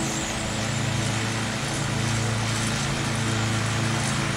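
Petrol engine running steadily at a constant speed.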